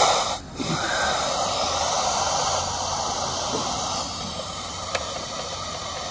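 FM static hiss from a Retekess TR604 DSP portable radio's speaker as it is tuned slowly between stations at the bottom of the FM band. It drops out briefly about half a second in and gives a faint click about five seconds in, clicking that comes from the DSP tuner.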